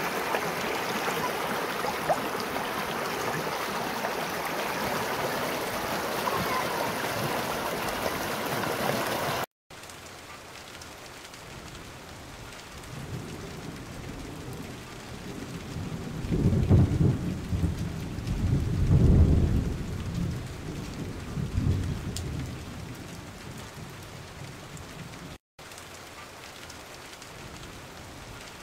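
Shallow river water rushing and splashing over rocks, loud and close for the first nine seconds or so, then quieter after a cut. Around the middle a few heavy, deep rumbles rise over the flowing water.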